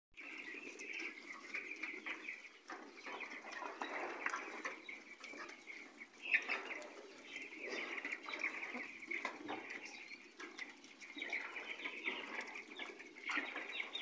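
Piglets eating fruit peels and vegetable scraps, with irregular chewing and rooting noises and a steady high-pitched sound behind them. There is one sharp click about six seconds in.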